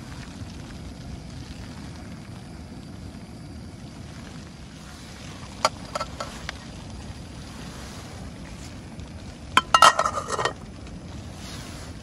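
Strong wind buffeting the microphone as a steady low rushing. A few sharp clicks come near the middle, and a brief loud clatter of knocks comes near the end.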